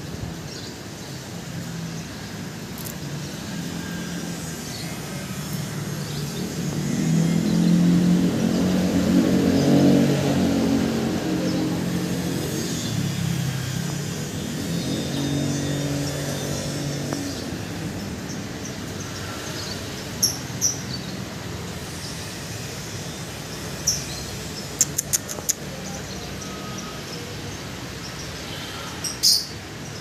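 A motor vehicle's engine swells up and fades away over about ten seconds in the first half. Later come a few short, high lovebird chirps and some sharp clicks.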